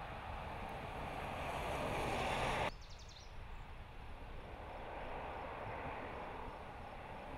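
Jeep Grand Cherokee Trailhawk driving past: an even rush of tyre and wind noise that swells for about two and a half seconds, cuts off abruptly, then comes back quieter and slowly builds again.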